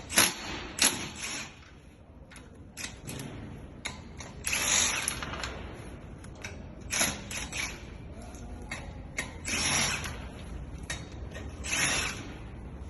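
Ratchet wrench working the wheel bolts loose to take off a car wheel: short bursts of rapid ratchet clicking, with separate metallic clinks in between.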